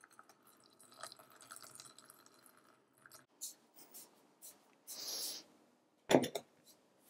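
Water poured from an electric kettle into a glass teapot, a faint trickle for about three seconds. About six seconds in, a sharp knock as a glass teapot and a mug are set down on a wooden table.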